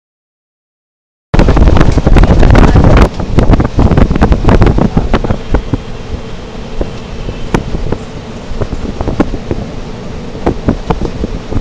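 Silent for about the first second, then a passenger train running at speed heard from an open carriage window: steady rumbling and rattling with many sharp, irregular clicks and clacks of the wheels and carriage. Wind buffets the microphone hard for the first couple of seconds of sound, then eases.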